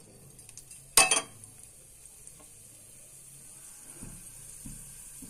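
Mustard seeds sizzling in hot oil in a metal kadhai, with a few soft pops near the end. A sharp knock about a second in is the loudest sound.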